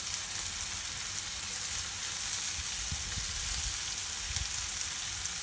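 Bitter gourd (karela) slices sizzling as they shallow-fry in hot coconut oil in a frying pan: a steady hiss with a few faint pops.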